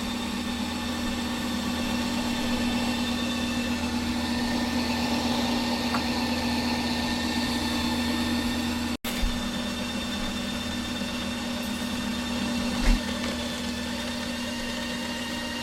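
Ninja Creami ice cream maker running its Mix-in program, its motor driving the blade through the frozen pint to fold in candy pieces, with a steady hum. The sound breaks for an instant about nine seconds in, and there are brief knocks just after that and near thirteen seconds.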